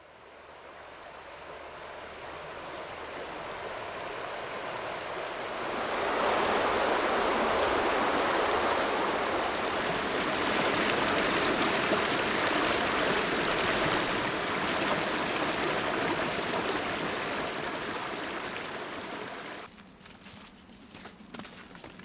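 River water rushing steadily, fading in and growing louder about six seconds in, then cutting off suddenly near the end, after which there are a few short sharp clicks.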